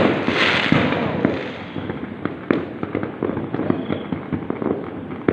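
Fireworks and firecrackers going off in rapid, continuous crackling pops, with a louder crackling hiss in the first second or so.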